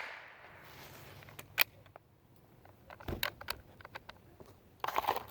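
The echo of a .22 rifle shot fades out, then come several sharp metallic clicks and clacks of an old Brno ZKM bolt-action .22 rifle being handled between shots.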